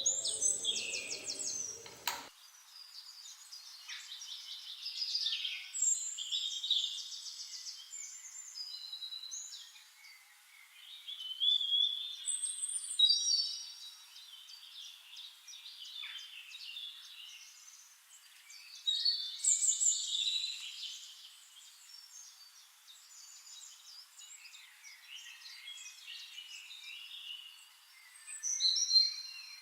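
Several birds chirping and singing, short trills and whistles coming in bouts with quieter stretches between.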